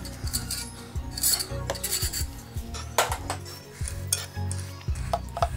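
Motorcycle front fork tubes being handled and worked over a drain bottle: irregular metallic clinks and scraping rubs as the parts shift, over background music.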